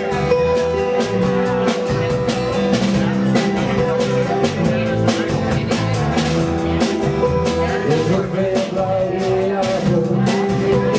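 Live rock band playing, with electric and acoustic guitars over a drum kit keeping a steady beat.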